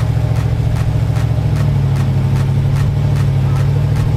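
A Jeep's engine running steadily at low revs.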